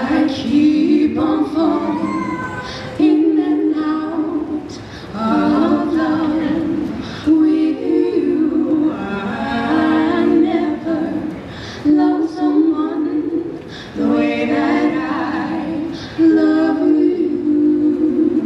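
Three female voices singing a cappella through microphones and a PA system, in sung phrases of a couple of seconds with short breaks between them.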